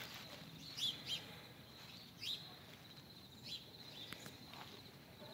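Faint outdoor ambience with a bird's short, high chirps, about five of them spread over a few seconds, over a faint steady high tone.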